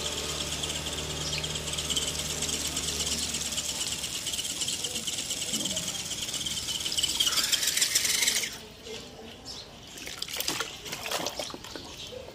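Wheels of a radio-controlled Land Rover D90 scale crawler spinning while submerged, churning and splashing water in a steady hiss, with a low hum under it for the first few seconds. The churning cuts off suddenly about eight and a half seconds in, followed by scattered small splashes and knocks of the model being handled in the water.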